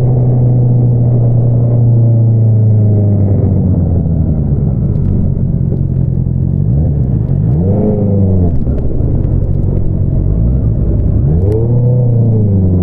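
Honda CBR650R inline-four engine running through an Akrapovič single-outlet exhaust under way, a steady note that twice rises and falls quickly in pitch with the throttle, about two-thirds of the way through and again near the end.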